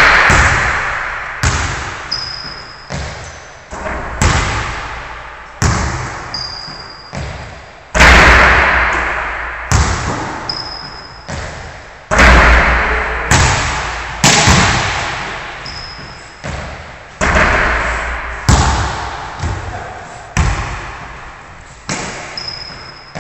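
Basketballs bouncing on a hardwood gym floor and shots hitting the backboard and rim, about one impact every second or two. Each thud rings on in the hall's long echo.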